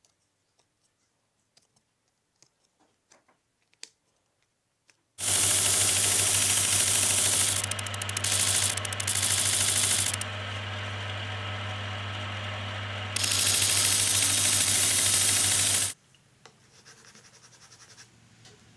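Faint pencil ticks and scratches on wood, then a disc sander running loud and steady for about ten seconds, its abrasive disc grinding the edge of a thin wooden kumiko lattice, louder while the wood is pressed to the disc and easing off in the middle. Near the end, faint rubbing of a sanding block on wood.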